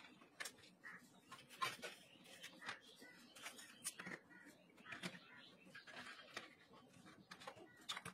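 Faint, irregular small clicks and taps of hard plastic parts and wires being handled and fitted together on a work mat.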